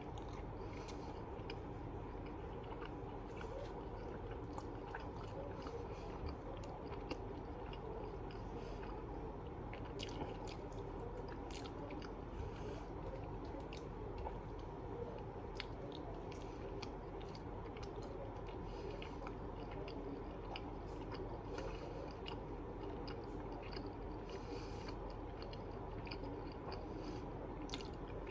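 A person chewing food close to the microphone, mouth sounds coming as irregular short clicks, over a steady low background hum.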